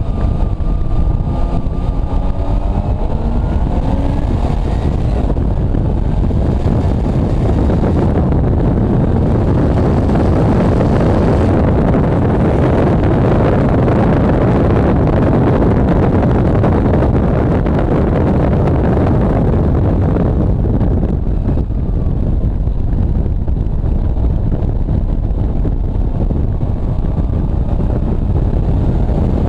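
Car engine at speed on a racetrack, heard through heavy wind noise on an exterior-mounted microphone. The engine note climbs under acceleration in the first few seconds, then wind noise covers it, easing about twenty seconds in when the engine pitch can be heard rising and falling again.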